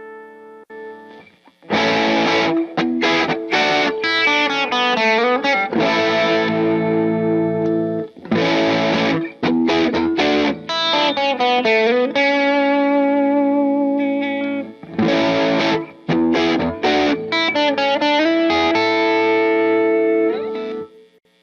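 Squier Classic Vibe Starcaster electric guitar, fitted with an upgraded Gunstreet Wiring harness (new tone pots and wiring), played through an amp. It plays strummed chords and riffs with bent notes in several phrases, with short breaks between them, and cuts off just before the end.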